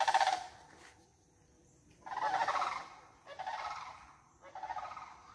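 A bird giving four rolling, rattling calls: a short one at the start, then three more in quick succession from about two seconds in, each under a second long.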